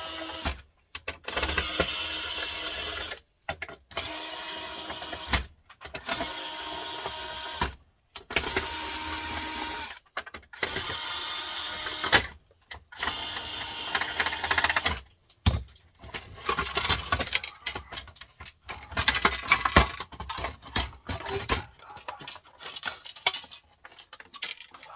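A power drill-driver unscrewing screws from a printer's front panel in about seven short runs of one to two seconds each, then clicking and clattering as the plastic panel and parts are handled.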